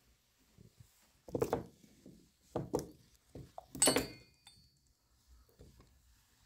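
Three dull thuds about a second apart, the last with a brief high metallic ring.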